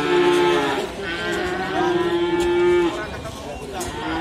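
Calves mooing: long, steady calls, the first with two voices overlapping, a second one about a second and a half long, and another beginning right at the end.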